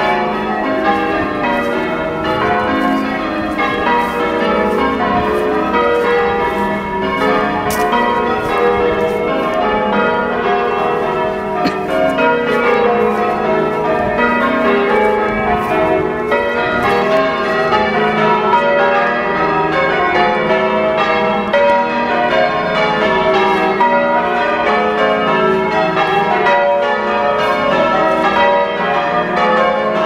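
Eight church tower bells rung in full-circle change ringing: a continuous, even stream of strikes whose order keeps shifting, in a triples method.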